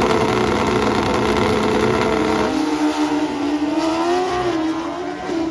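Drag-racing motorcycles, loud at the starting line, then launching about two and a half seconds in. The engine note climbs in steps as they shift and fades as they run down the strip.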